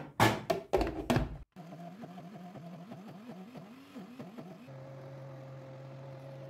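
A few loud knocks as the blender is handled. Then the countertop blender's motor starts and runs, its pitch wavering as the blades chew through whole soaked lentils, and it settles into a steady hum about five seconds in as the mixture turns to a smooth liquid batter.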